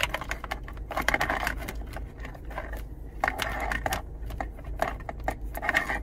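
Irregular clicks and short scraping rustles of wiring and plastic dash trim being handled, as a USB charger's wire leads are fed through a blank switch opening in the lower dash panel, over a steady low hum.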